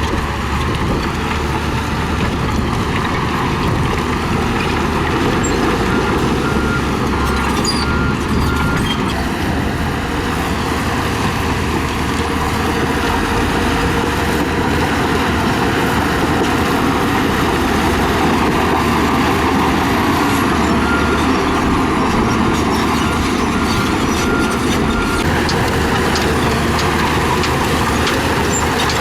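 Diesel engine of a bulldozer running steadily under load while it pushes gravel. A reversing alarm beeps at an even pace twice: for a few seconds about a fifth of the way in, and for several seconds past the middle.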